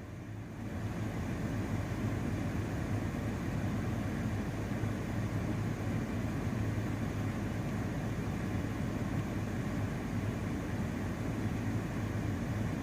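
Alinco DR-B185HT transceiver's speaker passing a keyed but silent transmission from a distant station: a steady hiss with a constant low hum and no voice.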